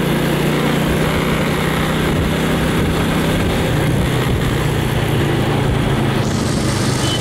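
Motorbike engine running at a steady cruising speed, its pitch holding even, with road noise underneath.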